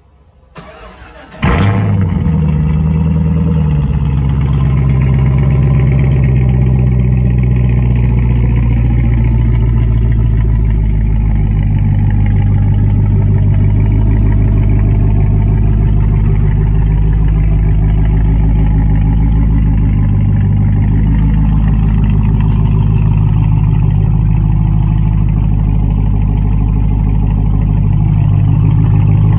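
Cadillac CTS-V's supercharged 6.2 L V8 through Black Widow Neighborhater mufflers, cold-started: it cranks briefly, catches about a second and a half in with a loud flare of revs, then settles by about four seconds in to a steady, loud fast idle while warming up.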